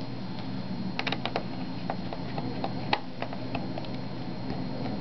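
Scattered light clicks and taps of hands fitting a plastic access cover onto a laptop's underside and setting a small screwdriver into its screw, over a steady low hum.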